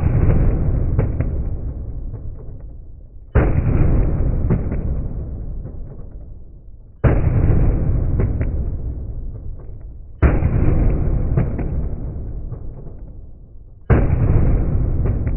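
Pistol shots fired from two handguns held one in each hand, five reports about every three and a half seconds. Each sharp bang is followed by a long echoing tail in the enclosed range.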